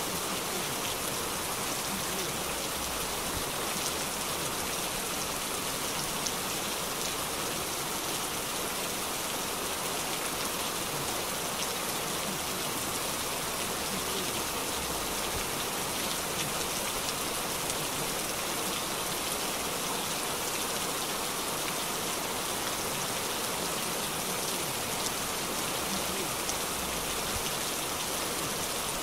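Heavy rain pouring steadily onto a wet street and pavement: a dense, even hiss of splashing drops.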